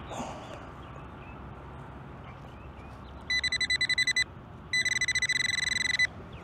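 Metal-detecting pinpointer beeping as it closes in on a buried coin: a high steady beep pulsing about ten times a second, in two runs with a short break between them.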